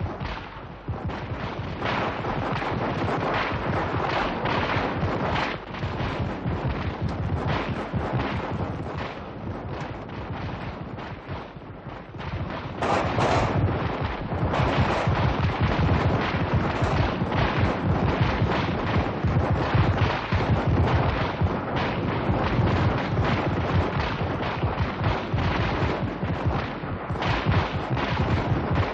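Dense, continuous gunfire: many shots crackling over one another without a break, louder from about halfway through.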